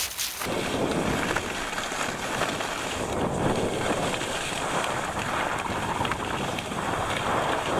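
Wind rushing over the camera's microphone during a fast downhill ski run, with skis sliding and scraping over packed snow. A steady, dense rushing noise that fills out about half a second in.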